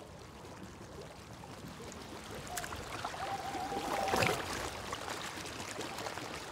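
Rushing, surging water, growing slowly louder, with a brief thin held tone a little past halfway.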